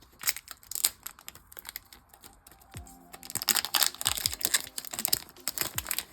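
Foil trading-card pack wrapper crinkling and cards clicking as they are handled, busiest in the second half. Music comes in underneath about three seconds in.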